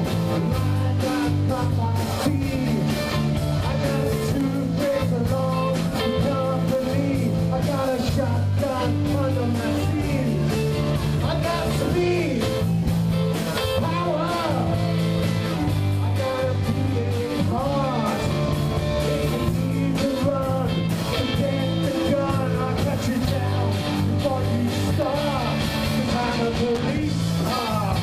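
Live rock and roll band playing steadily: electric guitars over electric bass and a drum kit.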